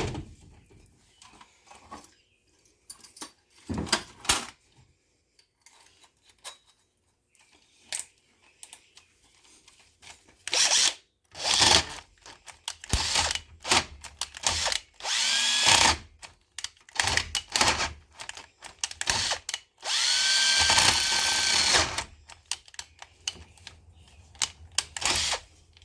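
Cordless power drill boring into a car's ignition lock cylinder, run in a series of short bursts, its motor whine rising as it spins up. Before the drilling starts there are faint scattered clicks and handling noises.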